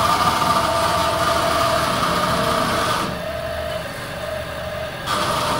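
Lely Astronaut robotic milking machine running: a steady two-note mechanical whine over a hiss. The hiss drops out about three seconds in and comes back about two seconds later.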